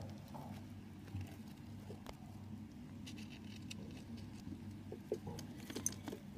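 A small pet rodent scrabbling about in hay and fabric cage bedding: faint rustles and scattered light clicks, the sharpest near the end, over a steady low background hum.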